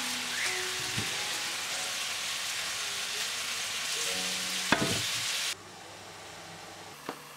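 Steamer pot hissing as its water boils hard to steam a layer of kue lapis batter, an even hiss that cuts off suddenly about five and a half seconds in. A sharp clink sounds about a second in and again louder near five seconds.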